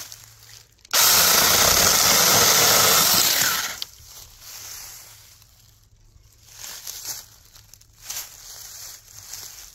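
Battery-powered Tomyvic 6-inch mini chainsaw switching on about a second in, running steadily for about two and a half seconds, then winding down. Soft rustling in dry leaf litter before and after it.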